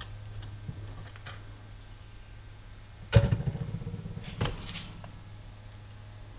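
Tools being handled on a wooden workbench: a sharp knock about three seconds in, then a lighter clatter about a second later, over a steady low hum.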